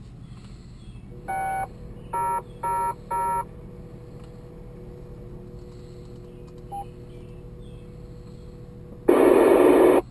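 Amateur radio transceiver speaker: four short beeping tones in quick succession, like touch-tone dialing, then about a second of loud static near the end.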